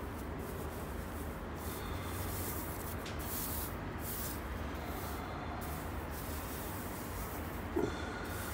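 Rustling of loose husk bedding and a fleece sleeve as a hand moves eggs around in a wooden nest box, coming in short hissy bursts, with one brief pitched sound near the end.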